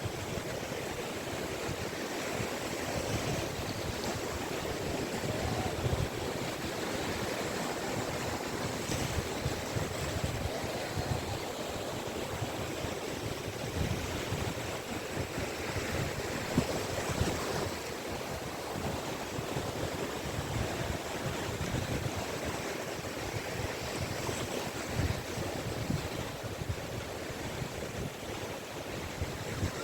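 Sea waves washing onto a beach, a steady rushing surf that swells and eases, with some wind on the microphone.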